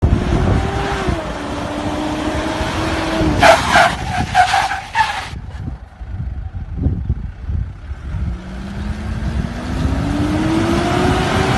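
Off-road 4x4 engine running under throttle. Its pitch drops about a second in. A burst of loud, harsh noise follows in the middle, with a few knocks. The engine then revs up with a steadily rising pitch near the end.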